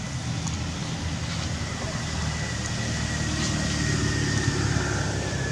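A steady low motor hum, with a faint thin high tone that drifts slightly lower through it.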